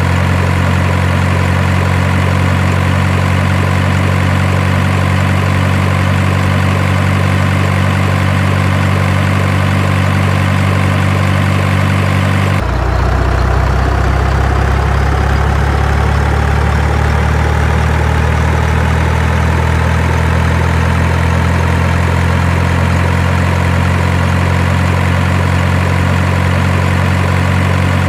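Steady, loud idling sound of a heavy truck engine. Its tone changes abruptly about halfway through, and after that a faint higher tone slowly rises in pitch.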